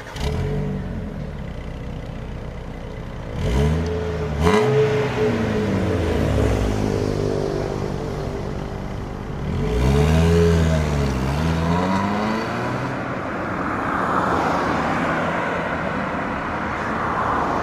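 Proton Persona's four-cylinder engine and leaky exhaust, the hole in the exhaust giving it a raspy note as the revs climb and fall twice under acceleration. After that it settles into a steady rush of road and wind noise.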